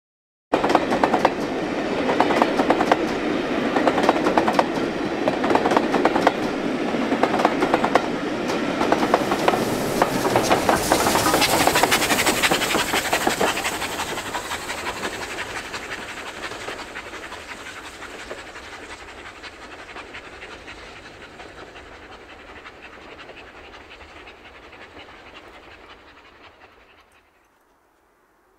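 Steam-hauled passenger train passing close by and running away, its wheels clattering rhythmically over the rail joints. It starts suddenly at full volume and fades steadily into the distance over the second half.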